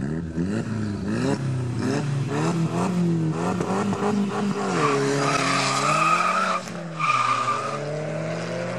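Two cars revving on a drag-race start line, an Audi S3 8L (1.8-litre turbo four) and a Volkswagen, their engine notes bouncing up and down. At about five seconds in they launch hard with a high tyre squeal that comes twice as they pull away.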